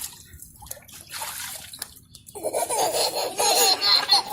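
A baby laughing in high, squealing peals that start about halfway through, after a couple of seconds of soft, breathy noise.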